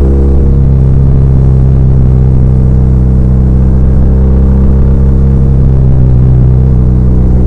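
BMW R1200R's air/oil-cooled boxer twin engine running at a steady speed while riding, with little wind noise.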